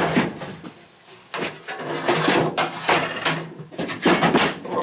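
Plastic laundry tub being tipped and shifted by hand, scraping and rubbing loudly in several stretches, the loudest near the start and near the end.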